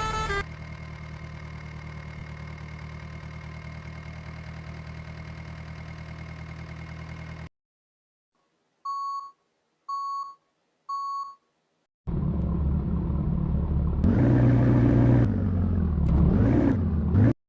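A steady low engine hum, then a pause with three short electronic beeps about a second apart, then a louder engine sound that rises and shifts in pitch before cutting off suddenly.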